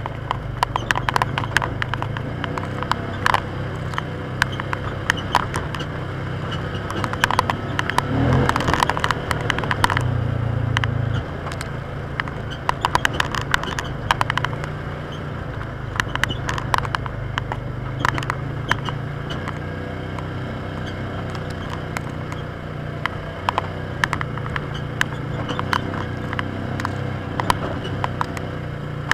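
Polaris Ranger side-by-side driving on a trail: its engine drones steadily, with constant rattles and clicks over the rough ground. The engine gets louder from about seven seconds in and drops back sharply around eleven seconds.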